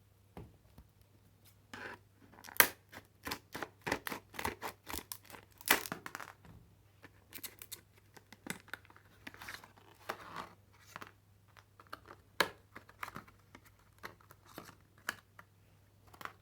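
Retail tool packaging being opened by hand: irregular rustling, tearing and crinkling with many sharp clicks and snaps, a couple of them louder.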